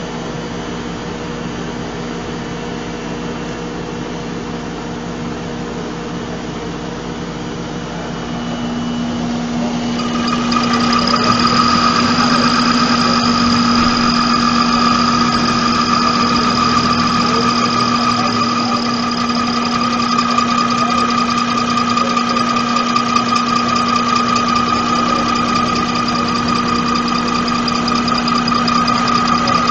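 Diesel fuel-injection pump test bench running an inline injection pump, a steady mechanical hum. About a third of the way in it grows louder and a high, steady whine joins as the bench picks up speed, then holds.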